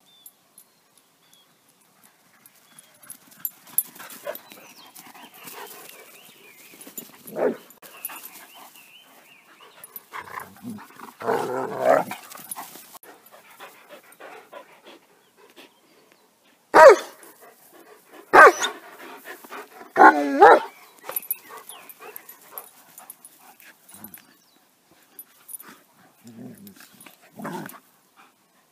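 Dogs barking in short, separate calls during rough play. There is a longer call about eleven seconds in, and the loudest barks come close together just past the middle.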